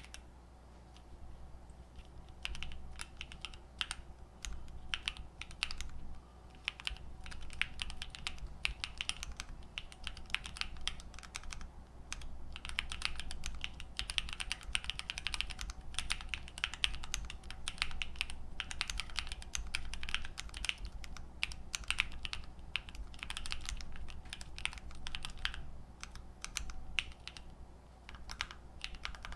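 Typing on a custom Sofle V2 split mechanical keyboard with factory-lubed Wuque Aurora switches, PBT keycaps, an FR4 plate and a poly-fil-dampened aluminium case: a steady stream of key presses, with a short pause about six seconds in and another near the end.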